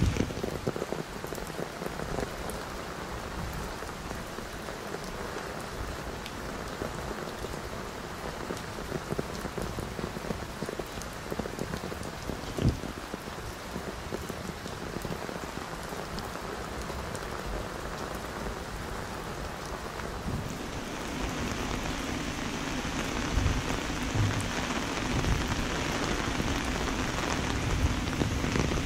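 Heavy rain falling and pattering on surfaces, a steady hiss that grows louder about two-thirds of the way through. A single sharp tap near the middle.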